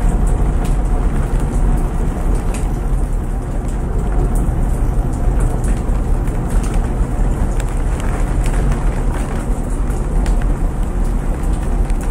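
Front-loading washing machine running with a steady low rumble, mixed with steady rain falling and scattered small ticks of drops.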